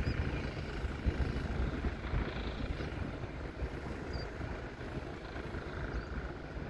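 Watco Australia diesel locomotive's engine rumbling at a distance as it moves slowly away along the track, the sound fading gradually.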